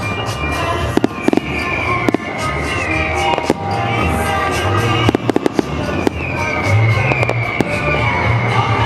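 Fireworks bursting and crackling in quick, irregular bangs, over music playing.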